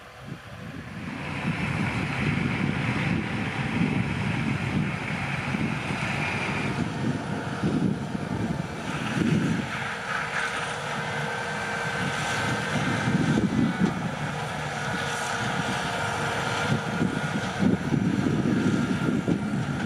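Holmer T4-30 self-propelled sugar beet harvester running, with a steady high whine over the machinery noise and wind gusting on the microphone. The sound comes up sharply about a second in.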